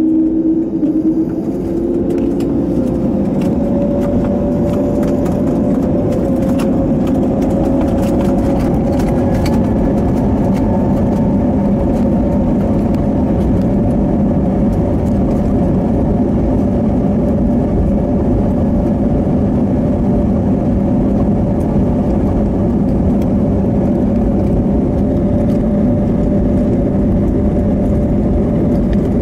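Airliner jet engines heard from inside the cabin, a whine that rises in pitch over the first few seconds and then holds steady over a dense rumble.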